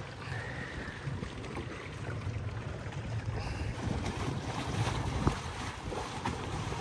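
Small fishing boat under way, its motor running steadily as it moves a floating tent alongside, with water washing past the hull and wind on the microphone. A sharp knock about five seconds in.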